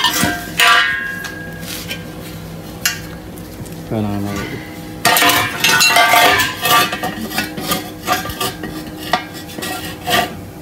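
Steel square tubing and small metal parts clinking and knocking on a concrete floor as they are handled, with a short ringing clink just under a second in and a busier stretch of scraping and clatter about halfway through.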